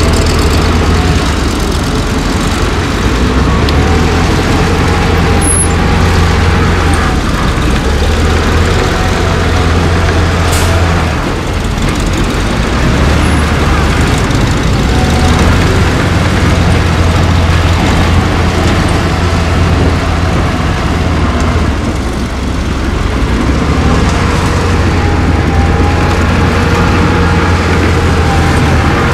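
Heavy diesel engine of earthmoving machinery running steadily under load with a low drone, easing off briefly about eleven and twenty-two seconds in.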